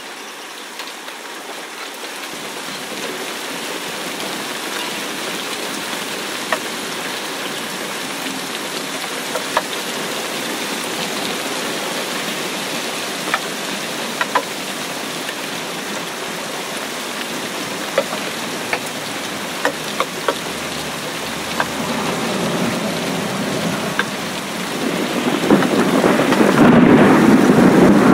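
Rain falling onto standing water in a steady hiss, with occasional sharp ticks of single drops close by. The sound swells louder and deeper over the last few seconds.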